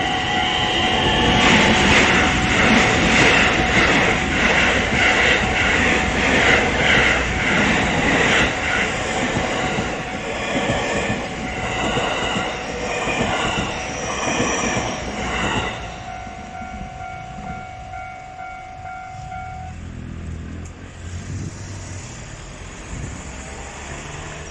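An electric local train passes over a level crossing, its wheels clacking in a steady rhythm over the rail joints, while the crossing's warning bell rings. The train noise drops off sharply about sixteen seconds in, and the steady bell tones stop a few seconds later.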